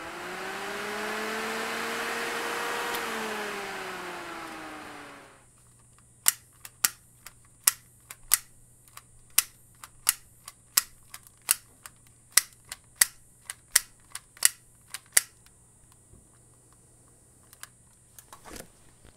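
12-volt electric radiator fan briefly running: its hum rises as it spins up, holds, then slides down in pitch and fades as it coasts to a stop about five seconds in. After that comes a run of about fifteen sharp clicks, roughly one every half second or so.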